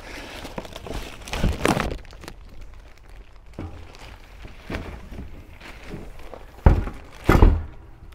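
Unpacking sounds: a plastic-bagged tuner is lifted out of its cardboard box, with bag rustling and cardboard scraping, then two loud thunks about a second apart near the end.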